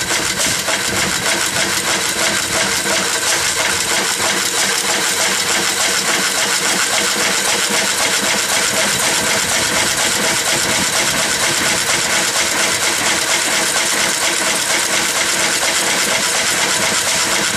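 McCormick-Deering 1.5 hp Model M throttle-governed single-cylinder engine running steadily just after a cold start, with a fast, even metallic clatter.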